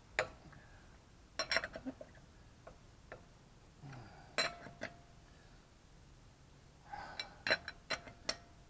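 Lug wrench clinking against a car wheel's lug nuts as they are tightened by hand: a few sharp metal clicks in small clusters, about a second and a half in, around four and a half seconds and near the end, two of them leaving a short metallic ring.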